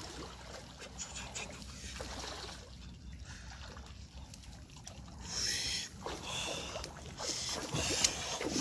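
Rustling and scraping of a wire-mesh crab trap being handled in grass, with several louder rustles in the second half.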